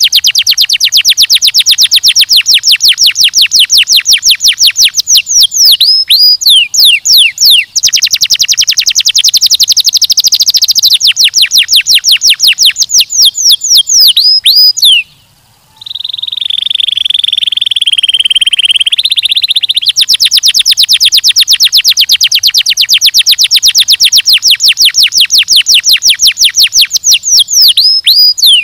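Domestic canary singing loudly: long runs of very fast repeated trill notes, broken now and then by a few falling whistled sweeps. About fifteen seconds in the song pauses briefly, then gives a few seconds of one steady buzzing roll before the fast trill starts again.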